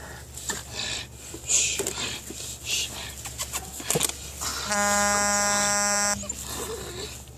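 Scuffling and rustling as a Belgian Malinois puppy tugs on a rag, with scattered clicks. Slightly past the middle, a loud, steady buzzing tone starts and stops abruptly after about a second and a half.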